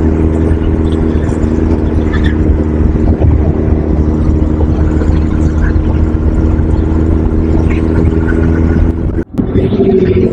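A motor vehicle's engine running at a steady speed with an even hum. It cuts out abruptly about nine seconds in, and a different sound takes over.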